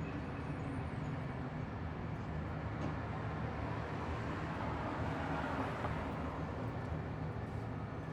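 Roadside traffic ambience: a steady low engine hum runs under a passing vehicle that swells and fades about five to six seconds in.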